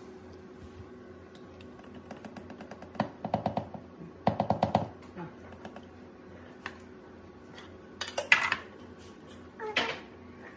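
Wire whisk and metal measuring cup knocking against a mixing bowl as batter is mixed: two quick runs of rapid clicking, then a few louder clinks later on.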